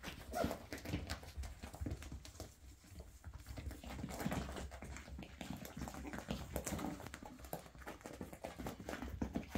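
Puppies and a small dog moving about, their claws tapping and paws scrabbling on the tiled floor and blanket in a run of irregular small clicks and rustles.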